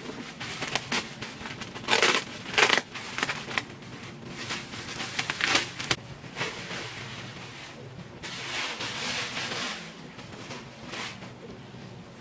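Plastic wrapping being pulled off a new couch, crinkling and rustling in irregular bursts, with louder crackles about two and three seconds in and a longer, steadier rustle later on.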